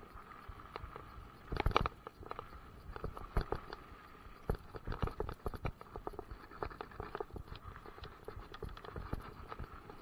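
Mountain bike riding fast over a rough gravel trail: tyres crunching on loose stones and the bike rattling and knocking over bumps in an irregular clatter, with sharper knocks about two, three and a half, and four and a half seconds in.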